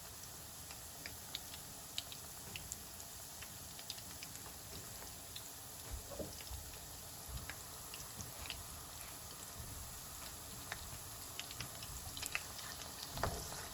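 Vegetable Manchurian balls deep-frying in oil over medium-low heat: a soft, steady sizzle with scattered small crackles and pops.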